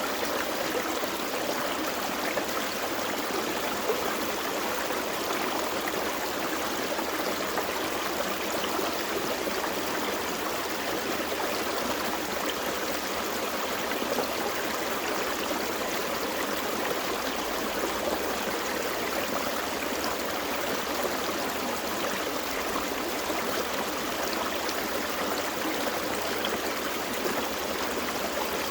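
Small forest stream flowing over rocks, a steady babbling rush of water.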